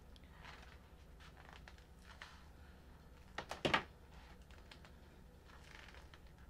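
Hands handling hair and a hair topper on the head: faint rustling and soft clicks, with a louder brief cluster of clicks about halfway through. A steady low hum runs underneath.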